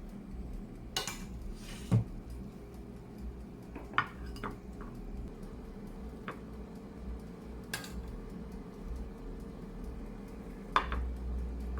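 Dishes and cutlery being handled: scattered clinks and knocks, a few seconds apart, over a low steady hum.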